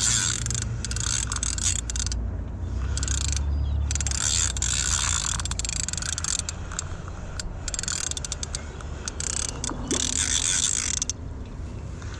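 Fishing reel ratcheting in stop-start runs of rapid clicking while a hooked carp pulls hard against the line.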